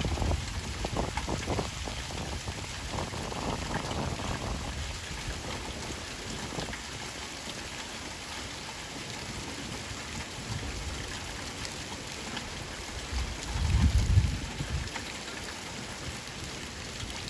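Light rain falling steadily, an even hiss of drops. A low rumble swells briefly about 13 seconds in.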